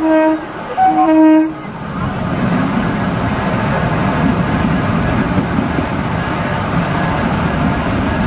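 Kolkata suburban EMU local train sounding two short horn blasts as it comes in. Its coaches then pass close by with a steady running noise.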